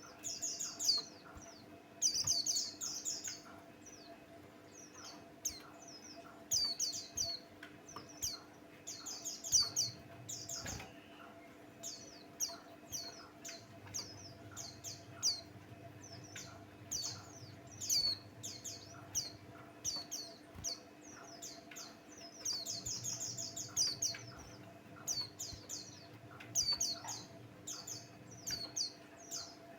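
A white-eye (pleci buxtoni) singing: rapid high, thin chirps and repeated short notes, broken by denser runs of fast twittering, with hardly a pause. This is a loud, continuous lure song of the kind played to set other white-eyes singing.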